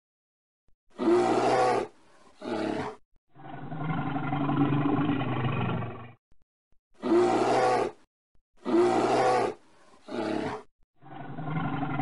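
Bear roars: a series of about six deep growling roars separated by short silences, two of them drawn out for about three seconds.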